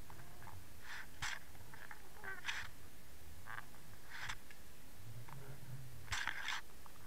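Underwater sound through a submerged camera housing: short raspy crackles at irregular intervals, the loudest pair about six seconds in, over a low rumble of moving water.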